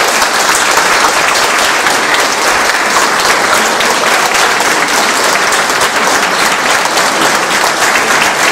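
An audience applauding, many hands clapping steadily and loudly.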